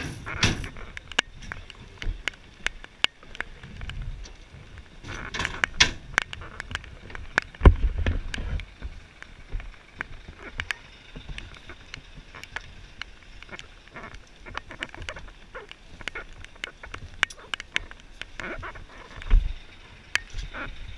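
Boots and handled tools knocking and clattering on a fire truck's aluminium tread-plate roof, with many scattered sharp ticks. Two heavy thumps stand out, about eight seconds in and again near the end.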